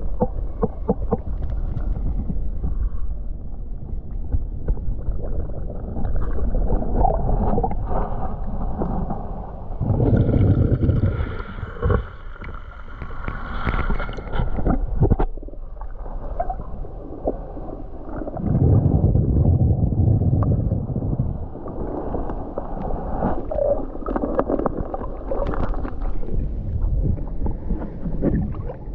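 Muffled swishing and gurgling of water from a swimmer's strokes and snorkel breathing, recorded underwater by the camera, swelling in surges every few seconds.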